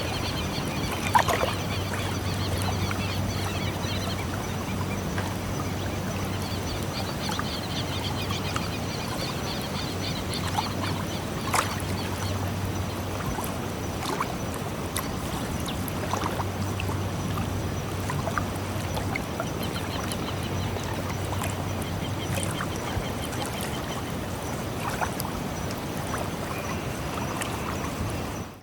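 Sea water washing steadily, with a low hum that comes and goes, a few sharp knocks, and stretches of high rasping calls.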